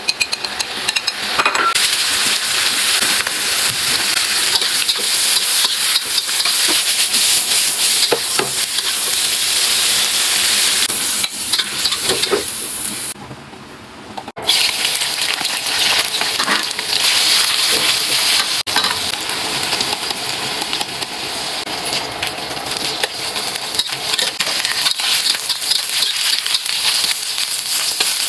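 Food sizzling and frying in a hot pan while being stirred, with occasional small clicks of utensil on pan. About halfway through, the sizzle drops away for roughly a second, then comes back.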